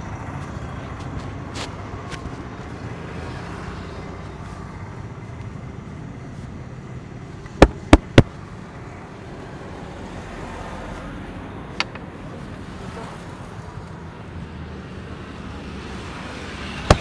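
Steady street traffic noise, broken about halfway by three sharp smacks in quick succession, about a third of a second apart, then a lighter one a few seconds later and another near the end: hand strikes of a head massage.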